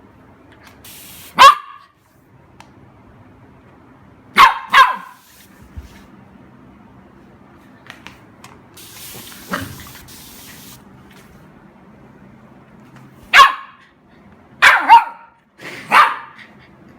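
Golden retriever puppy barking in short single and double barks, about seven in all. Two hisses of spray come between them: a short one near the start and a longer one, about two seconds, near the middle.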